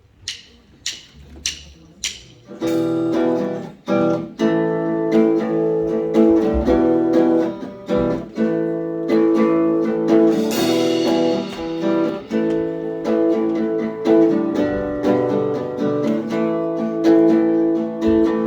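Four evenly spaced ticks counting in, then guitar strumming chords as a song's intro, with a bright crash of high noise about ten seconds in.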